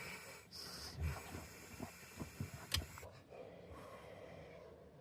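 Breathing with long, hissing exhales, and a few soft knocks in the middle.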